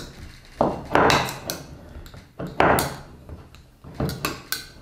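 A metal utensil scraping and knocking around the inside of a glass jar to loosen baked oat bread stuck to its walls, in three rough bouts of scraping, with a brief glassy ring near the end.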